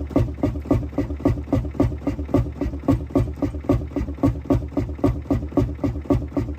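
Fairbanks Morse Type Y two-cycle semi-diesel engine running steadily at low speed, with a quick, even beat of firing pulses.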